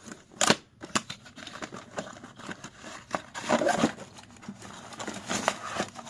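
Cardboard product box being opened by hand: irregular rustling, scraping and clicks of card flaps and a folded card insert, with a sharp snap about half a second in.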